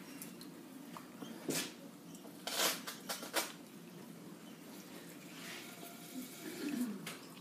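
Wet clay being thrown by hand on a spinning potter's wheel: sloshy, watery sounds of wet hands and slurry on the clay over a steady low hum, with a few short, louder wet splashes in the middle.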